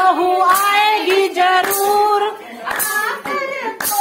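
A woman singing a devotional bhajan solo, holding and bending long notes, with handclaps keeping a steady beat about once a second.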